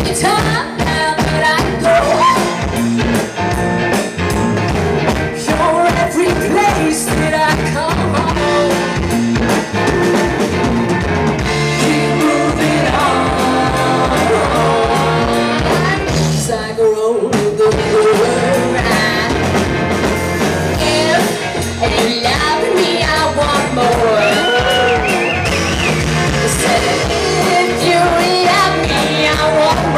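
Live rock band playing: a woman singing lead over electric guitar, bass guitar and drum kit.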